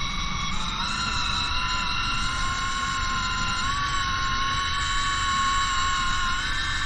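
Electric fishing reel's motor whining as it winds in line, its pitch stepping up about a second in and again near the middle, dropping briefly near the end, over a low rumble.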